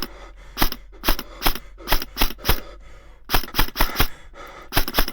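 Airsoft guns firing: about fifteen sharp snaps in irregular quick clusters, several shots a second at times.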